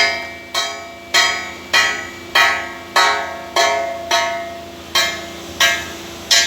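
Music: a plucked string chord struck in a steady rhythm, about once every 0.6 seconds, each stroke ringing and fading before the next.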